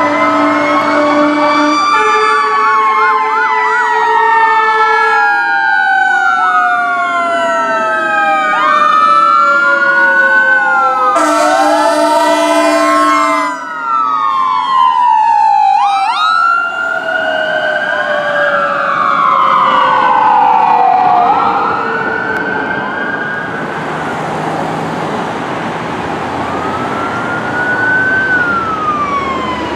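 Emergency sirens of a fire engine and a rescue ambulance responding: overlapping wails and fast yelps, with one long, slowly falling siren tone. Air horn blasts sound at the start and again about eleven seconds in, the second the loudest moment.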